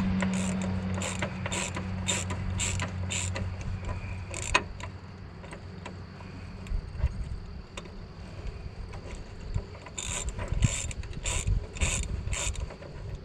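Hand ratchet wrench clicking in two runs of regular strokes, with a pause between, as a nut on the truck's steering linkage is worked loose.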